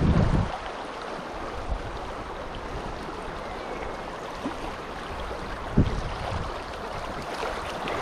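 River water rushing steadily. Wind buffets the microphone in the first half second, and a single knock sounds about six seconds in.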